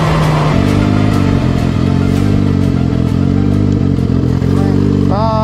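Turbocharged Suzuki Hayabusa 1300cc inline-four engine. It drops abruptly about half a second in from a higher, rougher note to a steady idle, and then idles evenly while the bike rolls up and stops.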